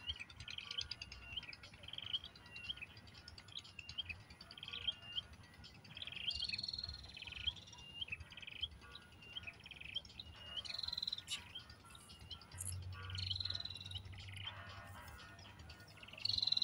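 Sparrows chirping at the nest: a steady run of short chirps, about one and a half a second, broken by a few longer, higher calls that fall in pitch, the loudest near the end.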